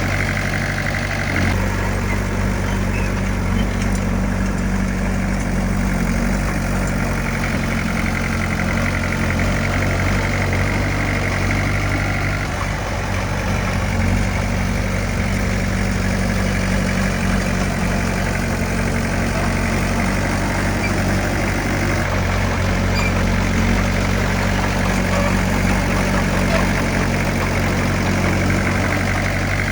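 Diesel engine of heavy earthmoving equipment running steadily, its note shifting slightly a few times.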